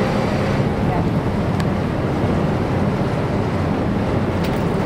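Passenger ferry under way: its engine runs with a steady low hum beneath wind buffeting the microphone and the rush of water past the hull.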